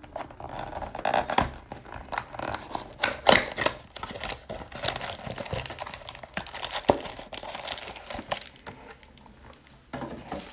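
Trading-card packaging being opened by hand: a wrapper crinkling and tearing in irregular crackles and rustles.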